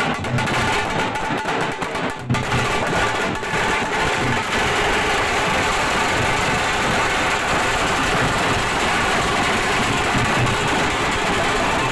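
Procession drum troupe playing large rope-tensioned barrel drums (dhols) with sticks. Separate strokes in the first few seconds merge into a dense, continuous roll about four seconds in.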